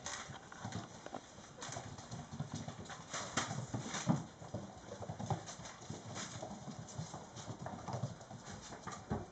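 Young mastiff puppies' paws and claws pattering and clicking on a hard wooden floor: many small irregular taps as several puppies walk and scramble about.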